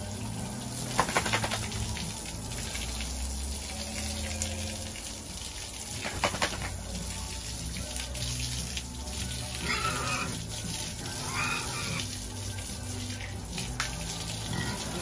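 Water spraying from a hose as a pigsty is washed down, the jet splashing on the floor and on the pigs. A few short knocks come near the start and about six seconds in.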